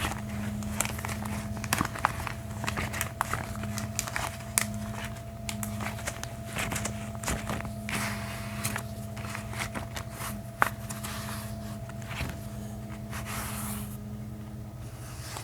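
Gloved hands rubbing and handling close to the microphone: irregular crackles and soft taps, with one sharper click about ten seconds in. A steady low hum runs underneath.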